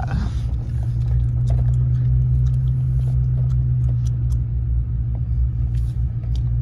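Steady low drone of a moving road vehicle's engine and tyres, heard from inside the cabin while driving.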